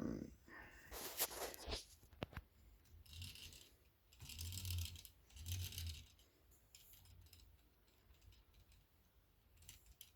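Faint clicking and rattling of plastic Lego Technic parts as a Lego Technic car model is handled and its moving parts are worked: a run of sharp clicks in the first couple of seconds, then three short rattles about halfway through.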